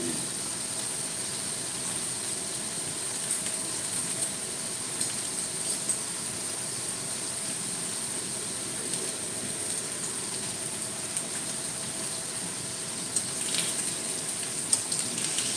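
Chicken pieces frying in oil in a stainless steel pan, a steady sizzle with small crackles throughout. Near the end a few sharper clicks come as metal tongs move the chicken in the pan.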